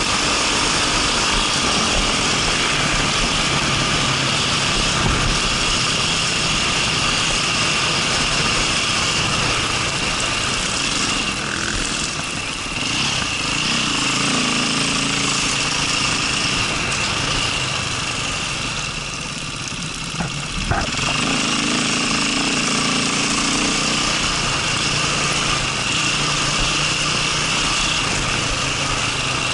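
Enduro dirt bike engine running under throttle on a rough dirt track, with wind rushing over the helmet-mounted microphone. About two-thirds of the way through, the engine eases off briefly and there is a single knock, then it pulls again.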